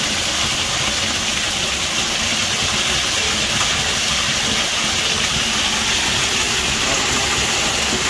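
Concrete pump running during a pour through its placing hose: a steady engine noise with a hiss and no break.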